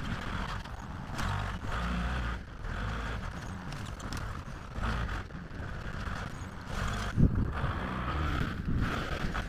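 Diesel earthmoving machine running with a steady low engine rumble, over a rhythmic metallic clanking about twice a second and a single sharp knock about seven seconds in.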